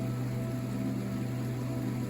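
River water rushing steadily, a constant low rumble with a hiss over it.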